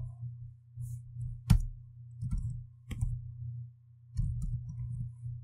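Computer keyboard keys clicking in short runs of typing, with one sharper, louder click about a second and a half in, over a low steady hum.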